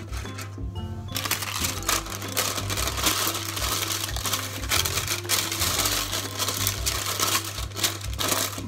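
Baking paper crinkling and rustling as it is pressed and smoothed into a round cake pan, starting about a second in, over background music.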